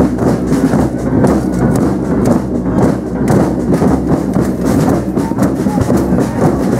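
Marching drum band playing a steady stream of drum strikes, mixed with the voices of a crowd walking past.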